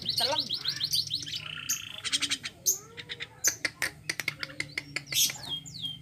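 Javan myna calling: a fast run of repeated rasping chirps in the first second, a held whistle, then a string of sharp clicks and a couple of falling whistles near the end.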